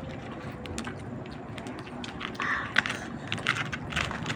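Close-up eating sounds: chewing, with scattered small clicks and taps from food containers and hands.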